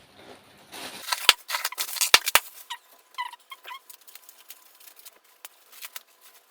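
A small shoulder bag being handled: rustling and a quick run of sharp clicks from its zip and fastenings, followed by faint high chirping squeaks.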